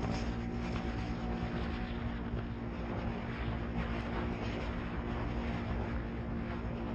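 Polaris RZR 900 side-by-side's engine running steadily as it drives across sand dunes, a constant drone under a rush of wind and tyre noise.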